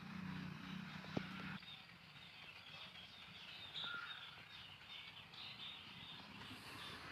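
Flock of chickens calling faintly, with a low hum during the first second and a half.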